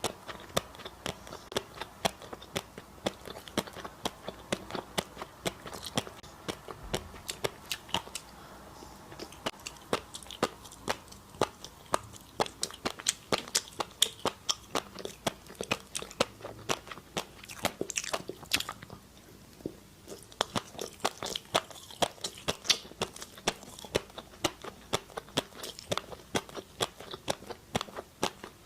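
A person chewing crunchy food: a fast run of sharp crunches, a few a second, with a brief lull about two-thirds of the way through.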